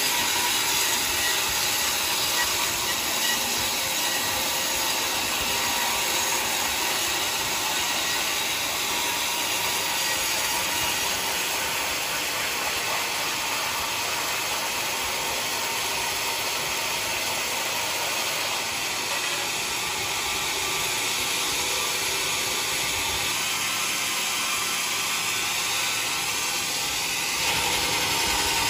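Sawmill saw cutting mahogany: a steady, high-pitched whine made of several held tones over a dense hiss. It gets louder shortly before the end.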